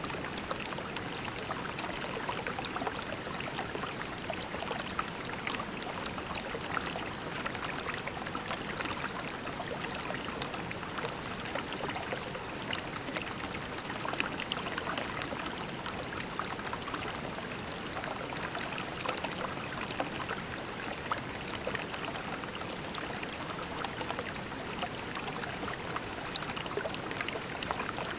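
A shallow creek flowing and trickling over pebbles: a steady babble of water with many small splashes and plinks.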